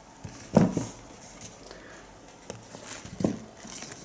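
Handling noise from a leather sneaker being turned over and felt: a few soft knocks and rustles.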